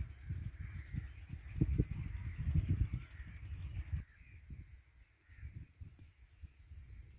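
Outdoor field ambience with wind buffeting the microphone in irregular gusts, over a steady high-pitched whine. About four seconds in, both cut off suddenly and the sound turns to a quieter, calmer background with faint small ticks.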